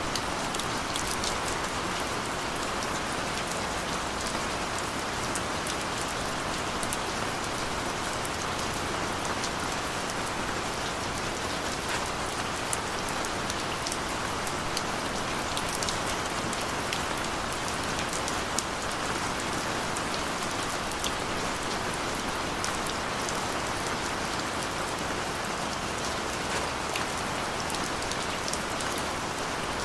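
Steady rain falling, an even hiss with many small drop patters throughout.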